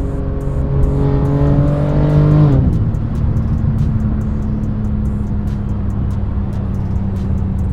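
BMW M3 G80's twin-turbo straight-six through an aftermarket titanium exhaust, pulling under acceleration with its note climbing, then the revs drop about two and a half seconds in and it settles to a steady cruising drone.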